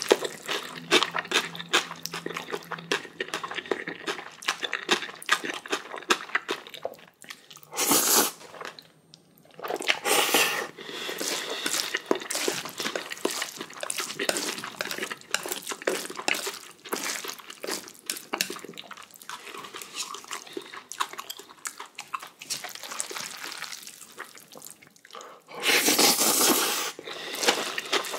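Close-miked eating sounds of Jjapaghetti black bean noodles with kimchi: steady wet chewing with many small clicks. Two louder, longer slurps come about eight seconds in and near the end.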